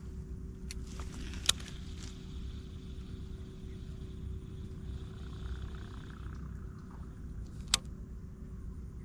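Baitcasting reel cranked steadily as a lure is retrieved, a faint even whir under a low rumble of wind on the microphone. A few sharp clicks break in, the loudest about one and a half seconds in and another near the end.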